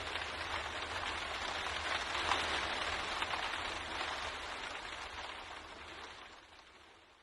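Steady rain pattering on a window pane, a dense even hiss of drops with a low rumble beneath, fading out over the last couple of seconds.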